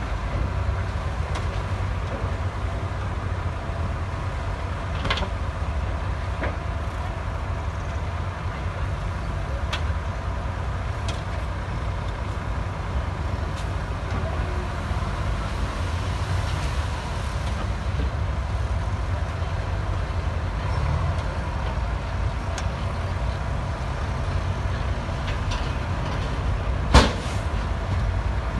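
Heavy diesel machinery engine running steadily with a low rumble, with a few light clanks and one sharp loud bang near the end.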